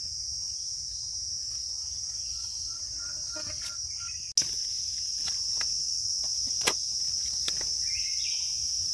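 A steady, high-pitched insect drone from a chorus of forest insects. About halfway there is one sharp click, after which the drone is a little louder, and a few faint clicks follow.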